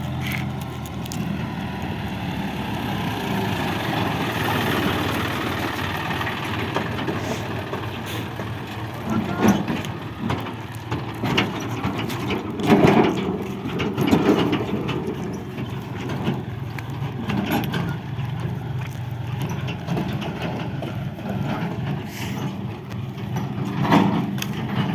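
JCB 3DX backhoe loader's diesel engine running steadily under working load, with several heavy thuds and knocks along the way.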